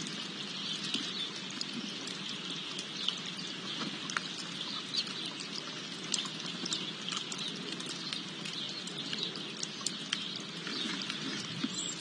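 Outdoor garden ambience: a steady hiss dotted with many small irregular ticks and pattering, with faint bird chirps.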